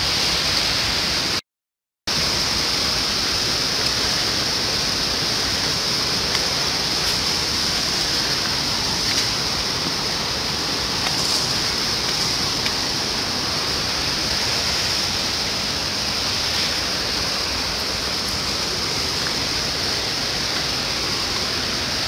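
Steady rush of water from a mountain waterfall, with a steady high hiss on top; the sound drops out for a moment about a second and a half in.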